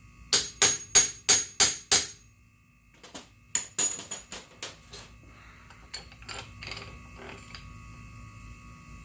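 A hammer striking metal, with a short metallic ring after each blow: a fast run of about six hard blows, about three a second, then a second run of strikes and some lighter taps. This is typical of tapping a part into place on the scooter's jack shaft.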